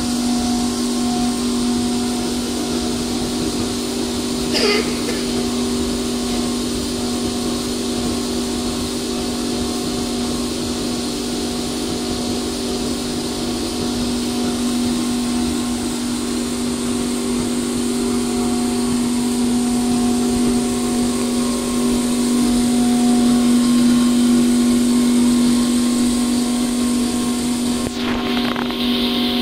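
Vacuum tumbler running, its motors giving a steady hum with a constant pitch, and one brief sharper noise about five seconds in.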